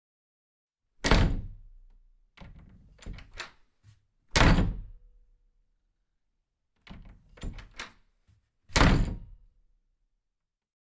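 Three heavy thuds, about three and a half seconds apart, each dying away over a second. Between them come quick runs of lighter knocks and clatter.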